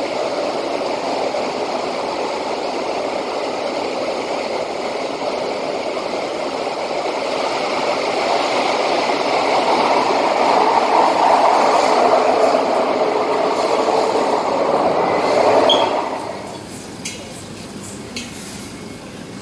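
Singapore MRT train running, heard from inside the carriage: a steady rumble and rush that grows louder toward the middle, then cuts off suddenly about sixteen seconds in, leaving a much quieter background.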